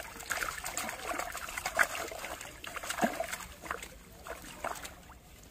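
Red-bellied pacu thrashing in a mesh net bag held in shallow pond water, with irregular splashing and dribbling water, busiest in the first few seconds and dying down after about four seconds.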